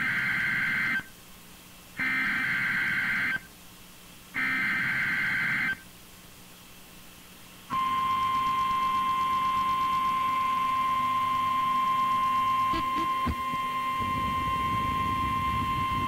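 NOAA Weather Radio emergency alert signal: three short bursts of buzzy digital header tones, each about a second long and about a second apart, then a loud steady single-pitch warning alarm tone starting about eight seconds in. Together they open a hurricane warning broadcast.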